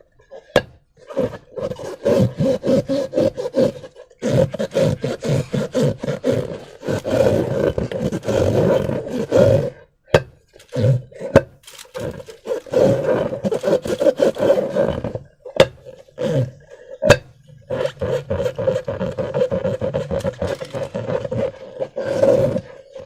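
Rubber balloon being squeezed and stretched, giving repeated rasping, buzzing squeaks at a steady pitch in stretches of a second or more, broken by short pauses and a few sharp clicks.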